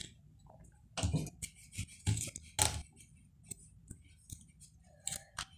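Origami paper crinkling and rustling as hands fold and crease it, a few sharp crinkles about one, two and two and a half seconds in, with softer rustles between.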